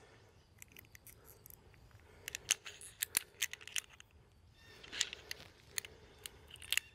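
Light metallic clicks and rattles of a Petzl Grigri Plus belay device and a locking carabiner being handled: the device closed on the climbing rope and the carabiner worked through it. The clicks come in quick clusters, about two to four seconds in and again near the end.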